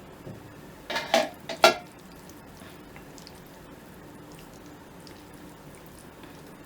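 Three quick clinks of chopsticks knocking against the pasta container, between one and two seconds in, the last the loudest.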